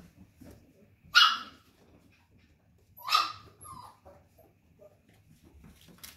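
Mini Goldendoodle puppy barking twice, short high-pitched barks about two seconds apart, the first the louder.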